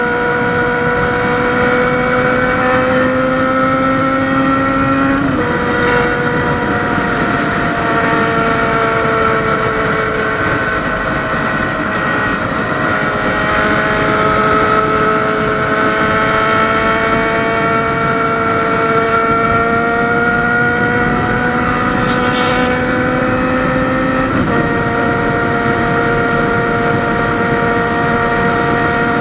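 Honda Hornet motorcycle's inline-four engine running loud under way, its note rising slowly and stepping abruptly in pitch about five seconds in and again near the end.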